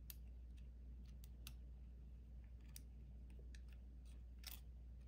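Faint, scattered small clicks of fingers handling a thermostat circuit board and its ribbon cable at the connector, a slightly louder one near the end, over a steady low hum.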